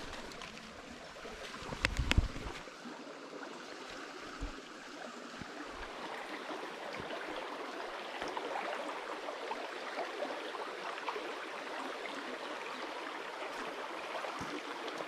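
Small mountain creek flowing over shallow stones: a steady rush of running water that grows a little louder from about six seconds in. A short thump comes about two seconds in.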